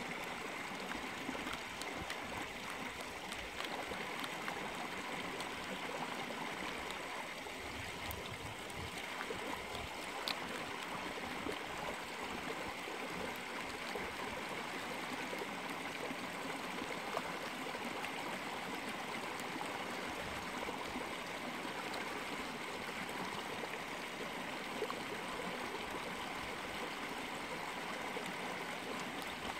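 Shallow creek water running steadily, with a few faint clicks.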